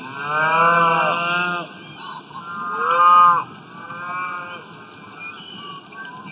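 Cows mooing: three moos. The first is long and starts right away, the second, the loudest, comes about two and a half seconds in, and a fainter third follows right after it.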